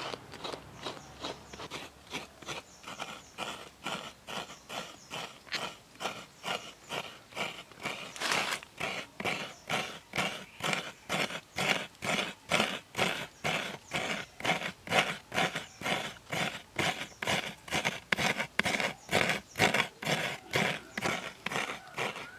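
A coconut half scraped by hand against the toothed blade of a stool-mounted coconut grater, shredding the white flesh. The rasping strokes come in a steady rhythm of about two to three a second.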